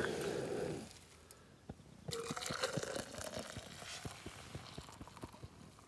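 A backpacking canister stove's burner hisses steadily and is shut off about a second in. Then boiled water is poured from a metal camp pot into an insulated steel tumbler, filling it, with small ticks throughout.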